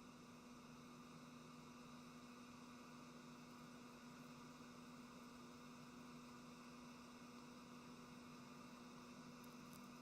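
Near silence: a faint, steady electrical hum under the room tone.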